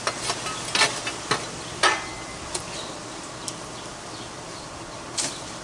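Small metal shovel scraping and clinking against burning charcoal briquettes and wood chunks inside a barrel pit, spreading the coals to even out hot spots. There are several sharp scrapes in the first two seconds, then a few scattered clicks over a steady hiss.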